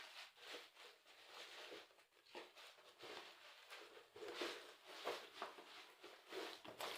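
Faint, irregular rustling and crinkling of packaging as the contents of a speaker box are handled.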